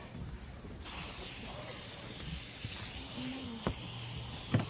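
A steady, even hiss that starts suddenly about a second in, with two short knocks near the end.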